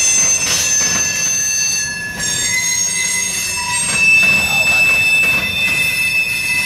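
Freight train cars rolling past with their steel wheels squealing against the rail: several high, sustained, shifting squeal tones over the low rumble of the passing cars, with a few faint knocks.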